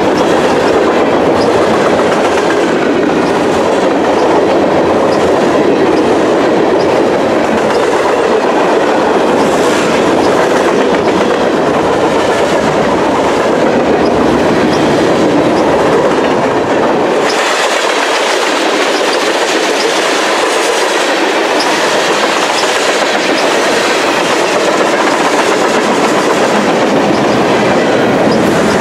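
Freight cars of a fast-moving train rolling past close by, their steel wheels on the rails making a loud, steady rumble. About two thirds of the way through, the deep rumble falls away and the sound turns thinner and hissier.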